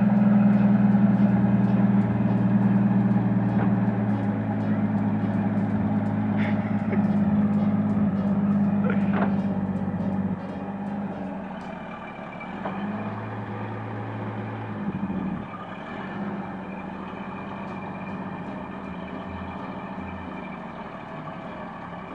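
GMC CCKW 353 truck's straight-six petrol engine running as the truck moves slowly over rough ground. It is loud at first, then drops to a quieter, steady running about ten seconds in.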